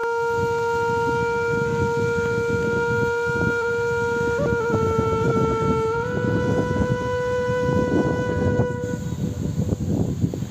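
A long, steady horn-like note held for about nine seconds, nudging up slightly in pitch twice before it stops, over a continuous low rumbling noise.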